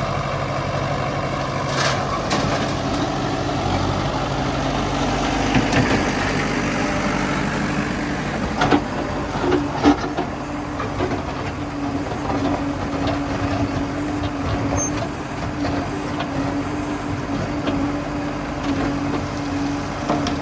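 Heavy diesel engine running steadily, with a few sharp knocks or clanks in the first half.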